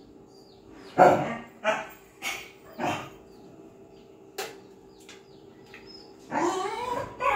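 A dog barking four times in quick succession over the first few seconds. A single sharp click follows about halfway through, and a longer voiced sound with bending pitch comes near the end.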